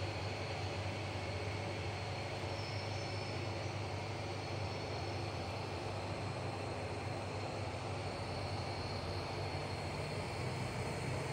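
Steady low hum under an even hiss, with a faint high whine on top; a constant machine-like drone that does not change.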